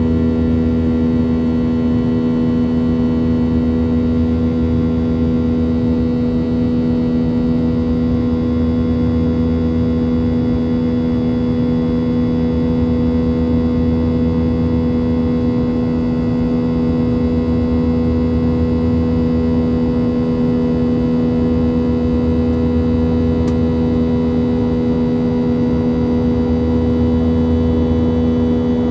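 Boeing 737-700's CFM56-7B turbofan engines heard inside the cabin during the climb after takeoff: a loud, steady drone with a strong low hum and fainter whining tones above it, over a low rumble.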